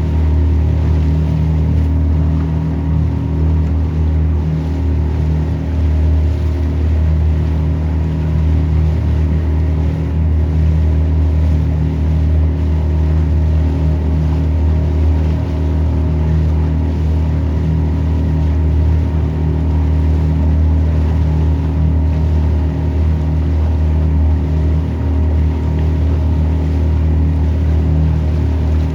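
Motorboat engine running steadily at cruising speed: a constant low drone with steady overtones, over the rush of water and wind.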